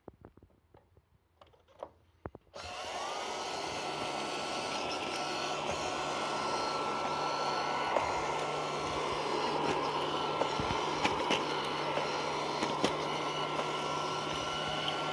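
A few faint clicks, then about two and a half seconds in the Housmile robot vacuum cleaner switches on: its motor spins up with a rising whine and then runs steadily, with occasional light ticks over it.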